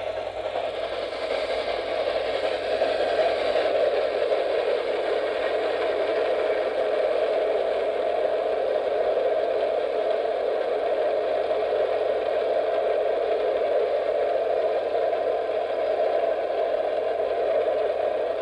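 Steady whirring rattle of an 8mm film projector running, swelling a little over the first few seconds and then holding level, with a faint low electrical hum underneath.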